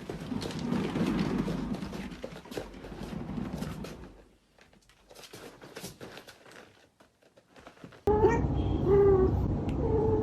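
A cat meowing in a run of short calls near the end, after a stretch of rustling and clicking.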